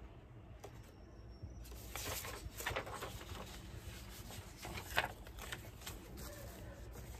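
Sheet of thick parchment-style paper rustling and crackling as it is handled and set aside, with a sharper crackle about five seconds in.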